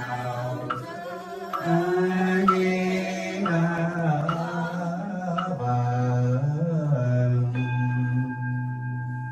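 Buddhist liturgical chanting in long drawn-out notes that shift in pitch. About seven and a half seconds in, a temple bowl bell is struck and rings on under the chant.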